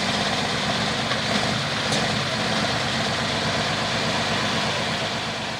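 John Deere 4320 pulling tractor's diesel engine running steadily at the end of its pull, easing off slightly near the end.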